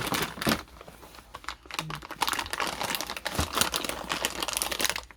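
Packaging being handled while unboxing mount parts: irregular crinkling and rustling with many small clicks.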